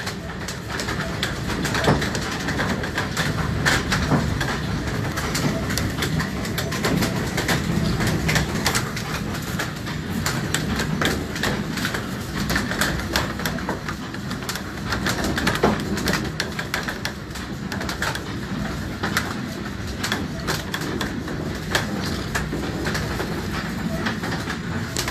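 Windmill's gearing running in the wind: a steady rumble with a dense, irregular clatter of wooden and iron gear teeth meshing.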